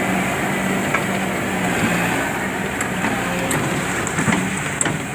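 Excavator's diesel engine running steadily, with a few light clicks in the second half.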